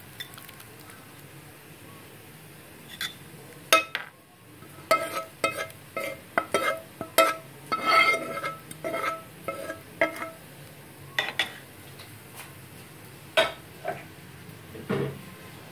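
Steel spoon clinking and scraping against the cooking pan and ceramic serving bowl as cooked chana dal is spooned out: a quick run of sharp, ringing metal taps that starts about three seconds in, with a few more taps near the end.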